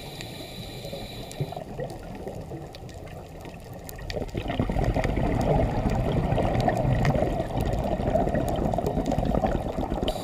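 Underwater sound of a scuba diver's exhaled bubbles rushing and gurgling, rising in loudness about four seconds in, heard through the camera's underwater housing.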